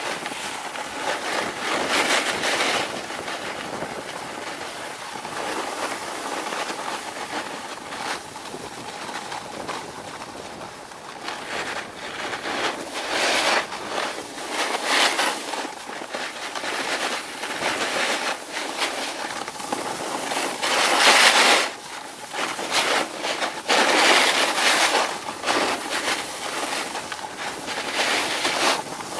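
Snowboard sliding over packed, tracked snow on a downhill run: a steady hiss of the board on the snow, rising into harsh scraping surges as the edges dig in on the turns, the loudest about two-thirds of the way through.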